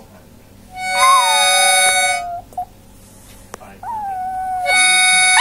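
A Chihuahua howling along to held musical chords. During the first chord, about a second in, the dog gives a long howl that slides down in pitch. Near the end, a second howl rises and then holds steady under another chord.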